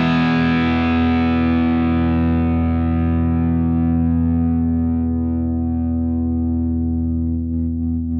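Electric guitar played through an Oldfield Model 6420 amplifier: one full chord, struck just before, rings out and sustains, its brightness slowly fading while the low notes hold. Faint touches on the strings come near the end.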